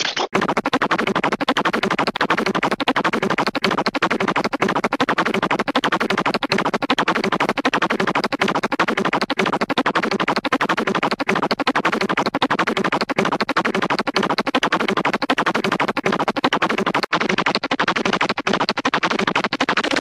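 Hanna-Barbera cartoon sputter sound effects: a fast, continuous stuttering putter, with a short break near the end before the next sputter starts.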